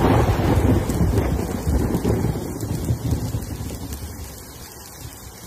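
A thunderclap breaking suddenly over rain, its deep rumble rolling on and slowly fading over several seconds.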